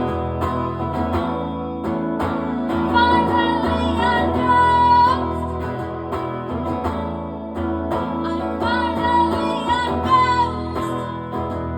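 Music: a voice singing long, wavering held notes over guitar accompaniment.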